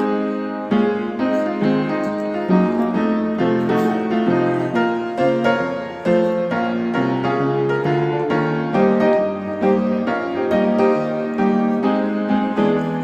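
Background piano music: a steady stream of notes, several sounding together, with no pause.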